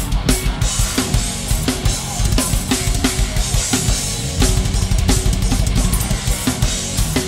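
Thrash metal drum kit playing: a rapid, dense bass drum under evenly spaced snare hits about three a second, with the band's music beneath.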